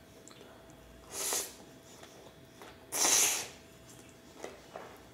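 A person slurping chewy Korean cold noodles (jjolmyeon): a short slurp about a second in and a louder, longer one about three seconds in, with a few faint clicks between.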